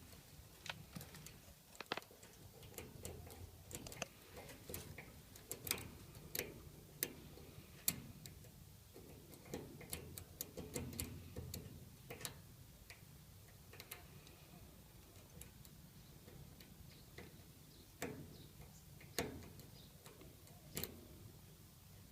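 Lock pick and tension wrench working the pins of a Master Lock padlock: light, irregular metallic clicks and scrapes, coming thickly at first and more sparsely later on.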